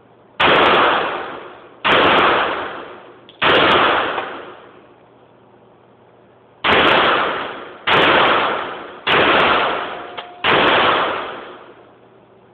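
Hi-Point .45 ACP semi-automatic pistol fired seven times: three shots about a second and a half apart, a pause of about three seconds, then four more. Each shot is followed by a long echoing decay.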